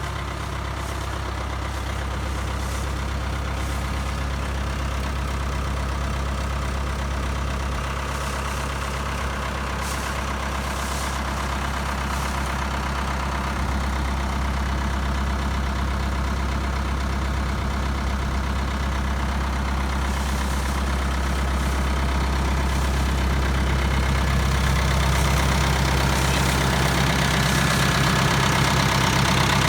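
Ford 7710 tractor's diesel engine idling steadily, growing gradually louder over the stretch.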